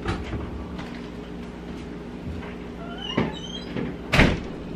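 Household knocks over a steady low hum, with a few short high squeaks about three seconds in and a loud thump about four seconds in.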